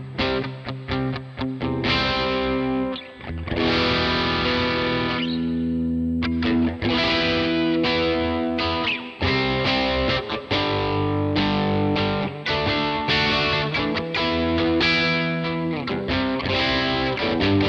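Electric guitar played through a Vox AC30 amp simulation (STL Tones AmpHub) with a driven, distorted tone: picked notes and chords that ring out, one held chord fading away about six seconds in.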